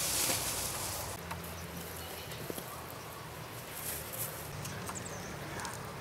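Rustling of leafy jicama vines and crumbling soil as the plants are pulled up by hand, loudest in the first second, then softer scattered rustles and small knocks over a low steady hum.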